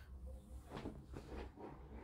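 Faint rustling and a few light taps from small items being handled on a workbench.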